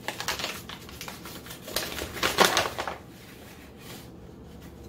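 Paper flour bag rustling and crinkling as it is handled, with a loud crackle about two and a half seconds in, then quiet.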